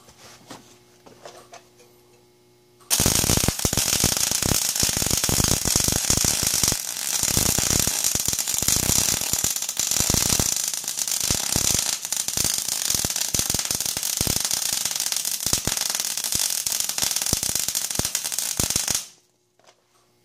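Electric arc welding: the arc crackles and sizzles steadily as a bead is laid where a threaded steel rod meets a steel bar. The arc strikes about three seconds in and cuts off abruptly about sixteen seconds later, after a few faint handling sounds.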